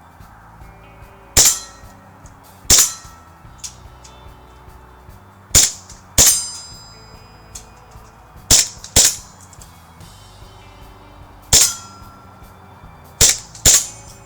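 Airsoft BBs striking metal target plates: about nine sharp clangs, each with a short metallic ring, some coming in quick pairs. Faint background music runs underneath.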